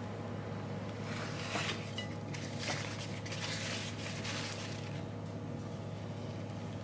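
A paper napkin rubbing and rustling against the rim of a ceramic soup bowl as drips are wiped off, in several soft strokes over a steady low hum.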